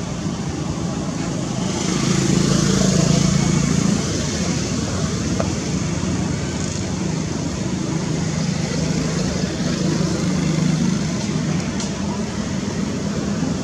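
Steady outdoor background noise with a low hum, louder for about two seconds near the start.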